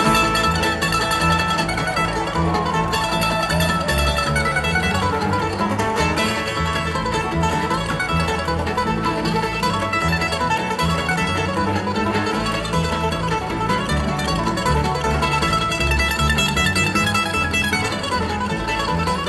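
Live amplified bluegrass band playing an instrumental passage on acoustic guitar, banjo, mandolin, fiddle and upright bass.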